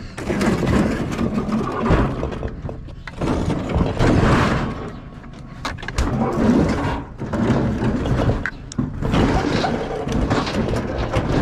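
Scraping, rattling and knocking of a discarded refrigerator being handled and shifted, in uneven surges with sharp knocks throughout.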